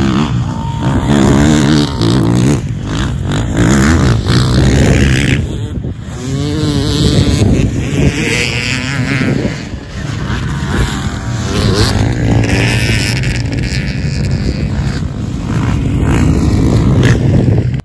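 A pack of off-road dirt bikes accelerating hard from a mass start, engines revving and rising in pitch again and again. One bike passes close near the end, the loudest moment.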